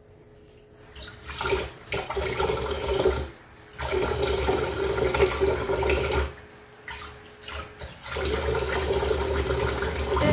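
Kitchen tap running into a pot in the sink while dishes are washed. The splashing comes and goes, with a quiet lull about six to eight seconds in.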